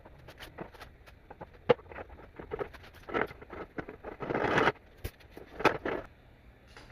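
Workshop handling noises: scattered clicks and knocks, with a brief scraping burst about four seconds in and a couple of shorter ones around it.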